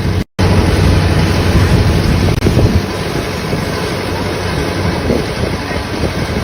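Kubota DC93 rice combine harvester running steadily, its diesel engine droning low, with wind buffeting the microphone. The sound cuts out for an instant just after the start.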